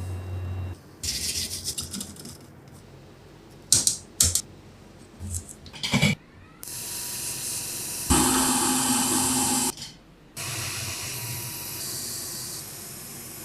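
Bench repair sounds cut together: stretches of hissing air and a few sharp clicks and taps, each stopping abruptly.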